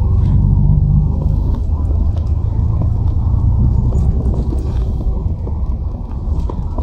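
Steady low rumble of a running vehicle, with faint clicks and rattles over it.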